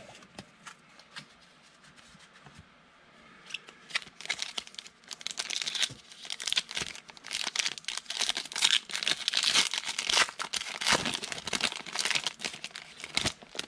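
Foil wrapper of a football trading-card pack being torn open and crinkled while the cards are pulled out. A few faint clicks, then a dense run of crinkling and tearing from about four seconds in.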